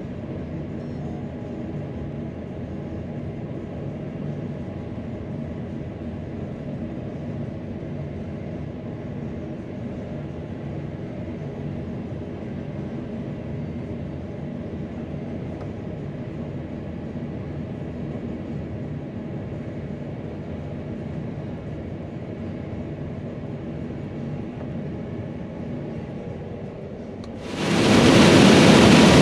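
Steady, muffled drone of a Fendt Ideal combine's engine and threshing machinery running while it harvests corn, heard from inside the cab. Near the end a much louder, fuller machine noise cuts in suddenly.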